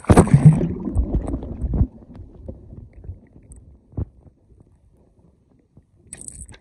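Splash as the camera plunges into river water, then about two seconds of loud churning water. After that comes the muffled sound of swimming underwater with a single knock about four seconds in, and a short rush of water noise near the end as the camera nears the surface.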